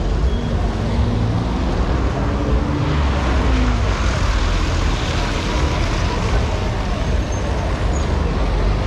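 Steady street traffic on a wet road: minibuses and cars running and moving past close by, with a low engine rumble throughout and a louder hiss about three to six seconds in as a vehicle passes. Crowd voices murmur underneath.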